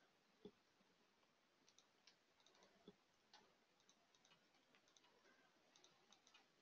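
Near silence with faint, scattered clicks of a computer keyboard and mouse as text is typed into a form, some coming in quick little clusters.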